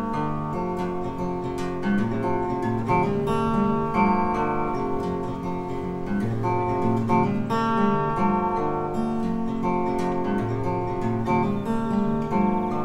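Background music: acoustic guitar strumming and picking a song's instrumental passage, without vocals.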